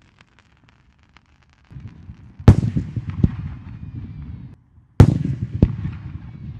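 Two aerial firework shells bursting about two and a half seconds apart. Each is a sharp bang, then a second smaller bang, then a fading low rumble with crackle.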